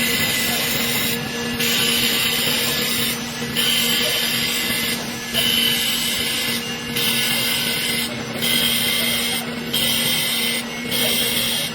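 Wood lathe running with a steady motor hum while a turning chisel cuts the spinning wooden table leg: a hissing scrape broken by short gaps about every one and a half to two seconds.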